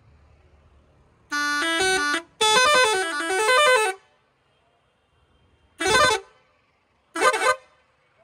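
Six-trumpet electric air-pressure musical horn (Source Sultan 021P) playing tune patterns in loud blasts: a short stepped tune about a second in, a longer passage of changing notes right after, then two short blasts near the end, with quiet pauses between.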